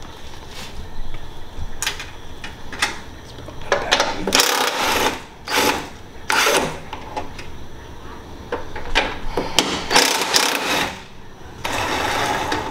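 Cordless impact wrench hammering in a series of short bursts with pauses between, the longest about a second, as it spins off the front strut's top-mount nuts at the strut tower.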